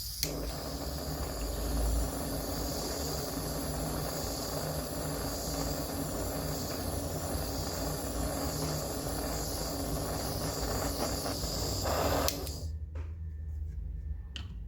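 A small machine running steadily with a hum and hiss, cutting off sharply about twelve seconds in, followed by a few faint clicks.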